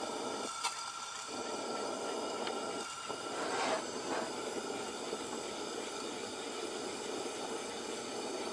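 Coleman 200A pressurized white-gas lantern burning with a steady hiss after being lit, with a light click under a second in as it is handled.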